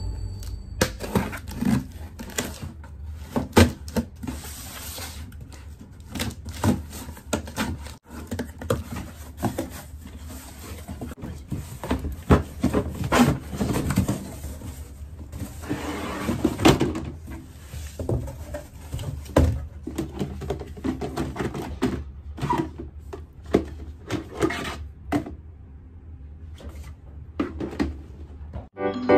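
Cardboard box being unpacked: a knife slitting the packing tape, then the cardboard flaps pulled open and the box lifted off white plastic storage drawers, with irregular rustles, scrapes and light knocks over a low steady hum.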